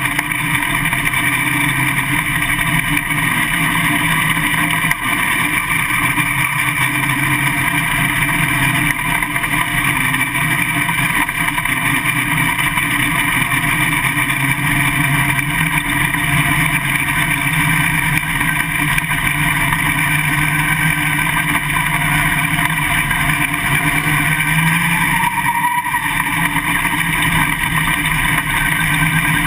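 Winged dirt late model race car's V8 engine running on track, heard from the onboard camera in the cockpit, loud and fairly steady with a brief dip in the note near the end.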